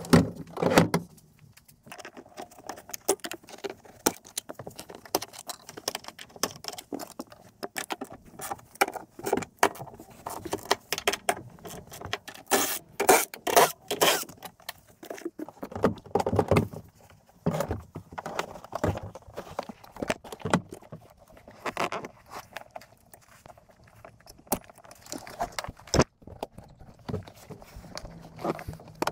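Irregular clicks, knocks and clatter from hand tools on the 14 mm seat bolts and from the rear seat's metal frame and brackets as the seat of a 2006-2012 Toyota RAV4 is handled and unbolted. The busiest, loudest clatter comes about halfway through.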